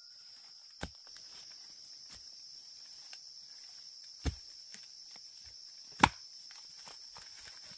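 Three sharp knocks, the loudest about six seconds in, over a steady high-pitched drone.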